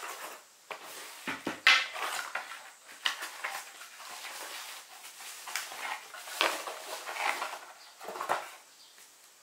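Cardboard boxes and packaging being handled: irregular rustling, scraping and sharp knocks as LiPo battery packs are pulled out of their boxes and set down on a table, the loudest knock about two seconds in.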